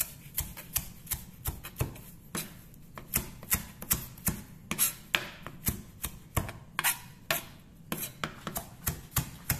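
Chef's knife chopping fresh mint leaves on a white plastic cutting board: an uneven run of sharp knocks on the board, about three a second.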